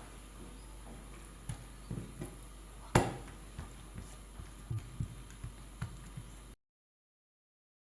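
Scattered light knocks and taps of objects being handled, with one sharp, much louder knock about three seconds in. The sound cuts out completely near the end.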